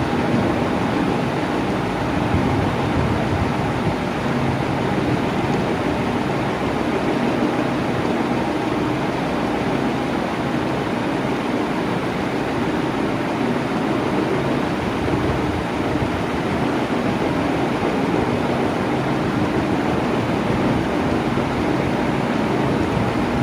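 Electric fan running steadily: an even rush of moving air with a faint motor hum.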